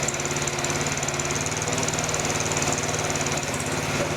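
Mini excavator's engine running steadily at a constant speed, with a fast, even firing beat.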